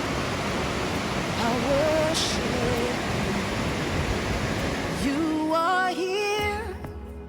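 Steady, loud rush of falling water. About five seconds in it gives way to a slow worship song with sustained notes.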